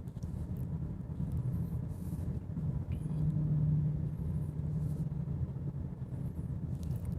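Road and tyre noise inside a 2018 Honda Accord's cabin at highway speed: a steady low rumble that swells for a couple of seconds about three seconds in.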